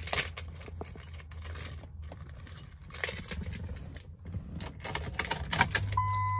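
Keys jangling and clicking as the ignition key of a 2004 Dodge Ram 3500 is put in and turned. About six seconds in, as the dash lights come on, a steady high electronic chime starts.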